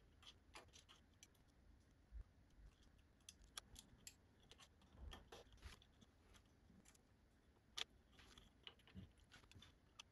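Near silence with faint, scattered light clicks and ticks of small metal parts being handled, as a DRO magnetic read-head sensor is fitted to a mini lathe's carriage; one slightly sharper click comes near the end.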